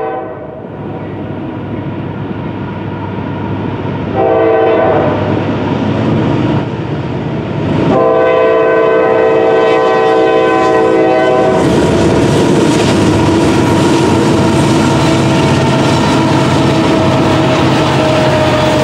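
Norfolk Southern freight train's locomotive horn warning for a grade crossing: one blast ends just after the start, then come two long blasts about four and eight seconds in. As the locomotives pass, their engine rumble gives way to the steady clatter of freight car wheels on the rails.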